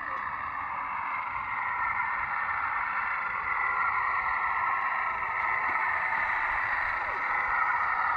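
Drive of an RC model CAT 906 wheel loader whirring steadily as it drives forward, growing gradually louder as it comes closer.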